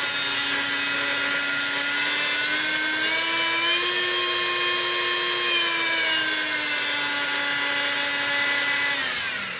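Bosch PMF 250 CES oscillating multi-tool running unloaded with a steady, high hum. Around the middle its speed dial is turned up, so the pitch rises a little, and then back down. Near the end the tool winds down, its pitch falling and the sound fading.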